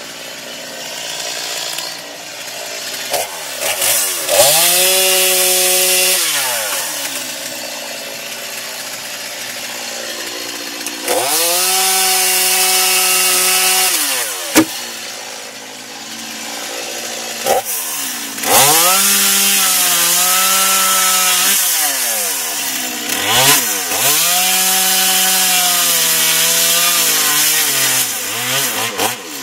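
Stihl chainsaw revved to full throttle four times, each time holding high speed for a few seconds while cutting wood, then dropping back to idle between cuts. A single sharp knock about halfway through.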